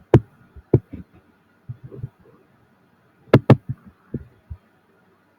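Scattered sharp clicks of a computer mouse, with a quick double click about three and a half seconds in.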